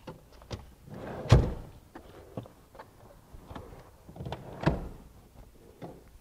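Plastic seat-track bolt covers being pushed and snapped into place at the base of a car seat: two loud thunks, about a second and a half in and again near five seconds, each after a short rustle of handling, with light clicks in between.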